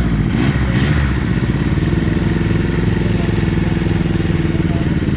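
Motorcycle engine running steadily at low revs, its note shifting briefly in the first second.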